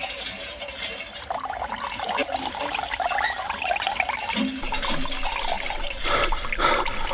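Water splashing and trickling, with an uneven, busy texture.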